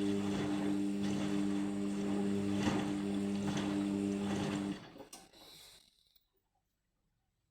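Indesit washing machine moving water during its rinse stage: a steady electric hum over rushing water, which cuts off sharply about four and a half seconds in, leaving a brief fading trickle.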